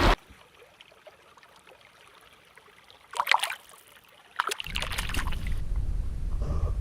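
Faint trickling of a small spring stream, broken by a short splashy burst about three seconds in and another a second later, after which a steady low rumble sets in.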